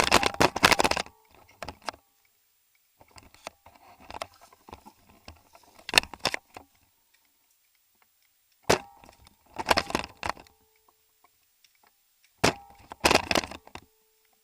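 Sharp single cracks and short clattering bursts of rapid cracks, a few seconds apart, with near silence between them.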